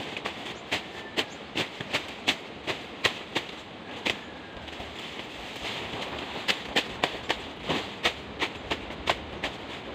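Weeds and undergrowth being cleared by hand: sharp, irregular snaps of plant stems breaking or being cut, two or three a second, over a continuous rustle of leaves. The snapping pauses for about two seconds midway while the rustling goes on.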